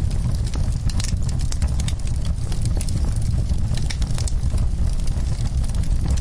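Wood fire burning in a fireplace: a steady low rumble of flames with frequent sharp crackles and pops from the burning wood.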